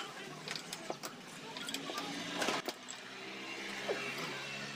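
Ring spanner on the rocker-arm bracket nut of an R175 diesel's cylinder head, making a few sharp metal clicks and clinks, the loudest a quick rattle about two and a half seconds in. Under it runs a steady low drone of an engine running in the background.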